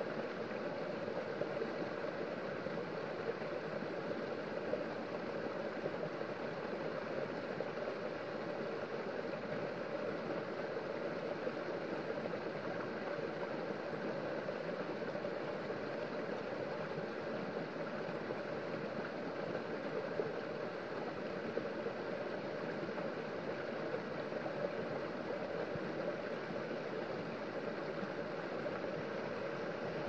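Small stream spilling over a rock step in a short cascade: steady splashing and rushing water.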